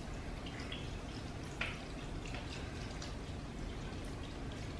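Chicken broth pouring from a carton into a slow cooker of thick soup base: a quiet, steady liquid pour with a brief click about one and a half seconds in.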